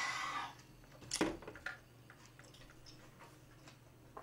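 Close-miked eating sounds: a short rushing burst at the start and a sharp knock about a second in, then faint chewing clicks.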